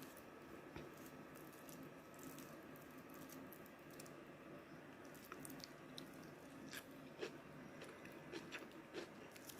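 Faint chewing and small mouth clicks of a person eating, over quiet room tone, with a few clicks more noticeable in the second half.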